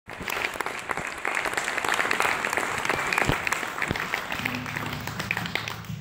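Audience applauding, the clapping thinning out towards the end. A low steady hum comes in about four and a half seconds in.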